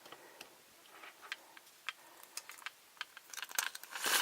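Faint, scattered clicks and ticks from a plastic toy being handled. About three seconds in, a rattling plastic mechanism starts and grows denser.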